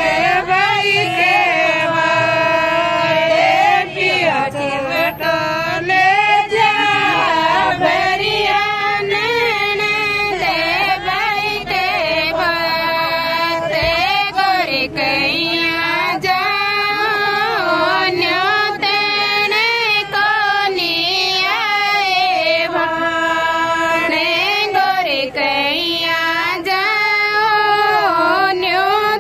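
A high-pitched woman's voice singing a Rajasthani bhat geet, the folk song of the bhat ritual, in long held notes that glide and bend between phrases.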